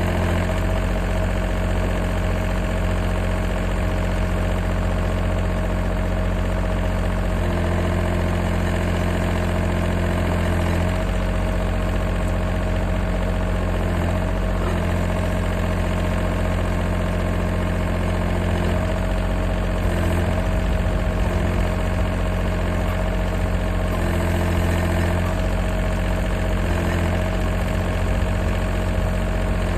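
John Deere tractor engine running steadily, its note stepping and shifting several times as it goes.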